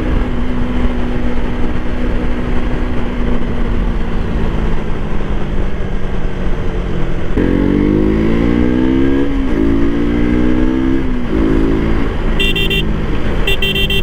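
Motorcycle engine running at road speed with wind rushing past; about seven seconds in the rider opens the throttle and the engine note climbs, dips once and climbs again. A horn gives two short blasts near the end.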